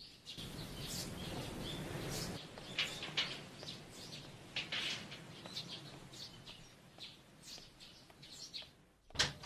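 Small birds chirping in short, scattered calls over a soft outdoor ambience, with a low rumble under the first two seconds. A single sharp knock near the end is the loudest sound.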